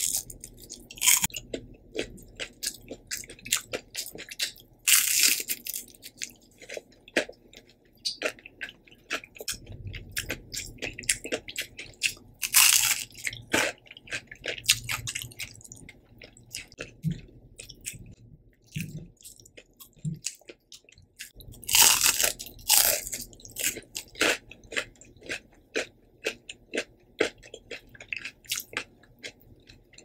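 Close-miked biting and chewing of crispy breaded fried shrimp: a few loud crunching bites, with steady crackly chewing between them.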